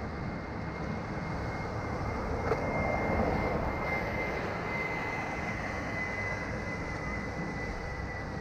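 Roadside outdoor ambience: a steady low rumble of wind and traffic, swelling as a vehicle passes about three to five seconds in, with a thin steady high whine throughout.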